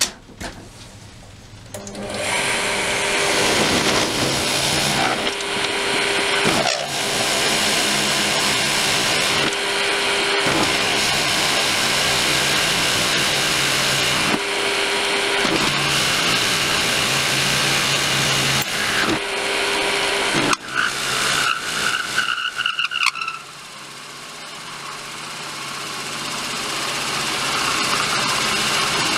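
A wood lathe spins a pear-wood blank while a long twist drill in the tailstock bores into its end grain, the drill cutting and grinding out chips. The noise comes in loud about two seconds in and breaks off briefly several times. Near the end it drops and slowly builds again.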